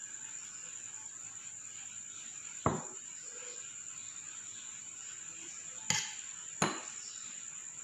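Metal serving tongs clinking sharply three times against the dishes as spaghetti is served from a pan onto a plate, over a steady high-pitched whine.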